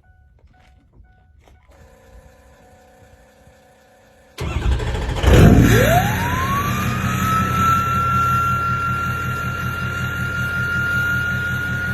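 Ford 6.0 Powerstroke V8 turbo-diesel cold-starting: after a few quiet seconds the engine cranks and catches about four seconds in, then settles into a steady idle. The turbocharger spools up with a rising whistle that levels off into a loud, steady high whistle over the idle.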